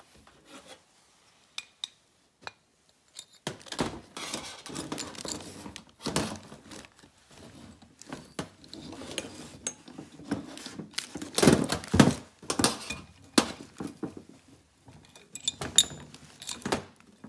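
Irregular metallic clinks, clicks and scraping of a valve spring compressor being run down on a Honda CRF450's aluminium cylinder head to compress a valve spring. The loudest knocks come about two-thirds of the way through.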